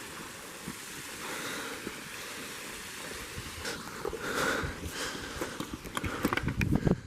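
Hikers' footsteps scuffing and crunching up a steep slope, with irregular knocks and low thumps that get louder and closer together near the end.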